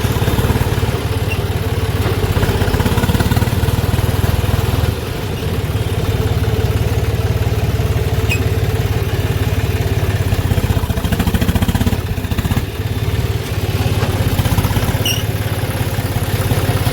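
Tractor diesel engine running steadily with a fast, even knock of its firing strokes, easing off briefly about five seconds in and again around twelve seconds.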